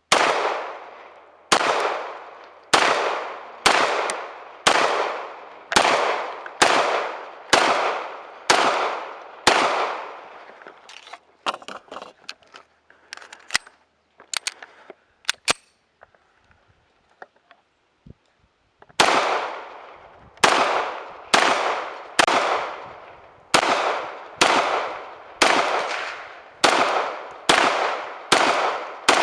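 Gunshots at a shooting range, each ringing out with a long echo tail. About ten shots come at roughly one a second, then a few seconds of lighter clicks and clanks, then a faster string of about fourteen shots from about two-thirds of the way through.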